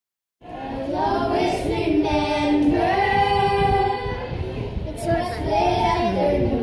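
A small group of children singing together unaccompanied, cutting in about half a second in after a brief dead silence.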